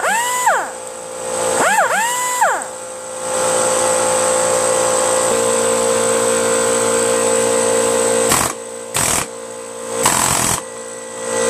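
Pneumatic cut-off tool triggered twice in short bursts, its whine rising then falling as it spins up and down, then a steady hiss for several seconds, and short blasts from an air hammer near the end. Under it all, the steady hum of the air compressor, which keeps running because it will not shut off by itself.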